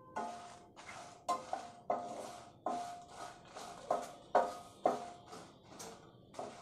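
Wooden spatula stirring dry red chillies as they dry-roast in a non-stick pan: a scrape and rattle about twice a second, each with a short ringing note.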